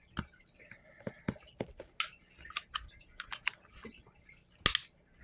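Small metallic clicks and taps from a Quality Firearms .25 ACP pocket pistol being handled as its slide is worked back onto the frame, with a sharper click near the end.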